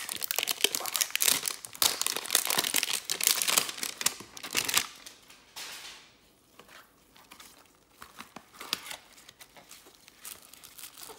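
Plastic shrink-wrap being torn and crinkled off a cardboard trading-card hanger box, with dense crackling for about five seconds, then quieter scattered rustles and clicks as the box is handled and its flap opened.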